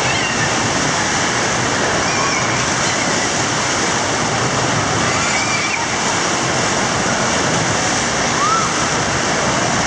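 Waves churning in a wave pool: a loud, steady rush of foaming water, with a few faint children's shouts over it.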